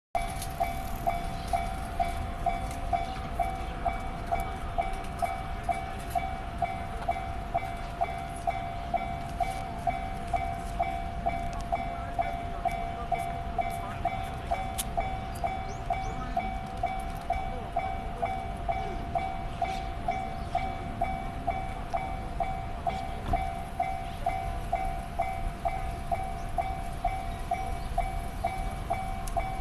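Japanese railway level-crossing warning bell ringing steadily at about two rings a second, a repeated two-tone electronic "kan-kan" over a low rumble.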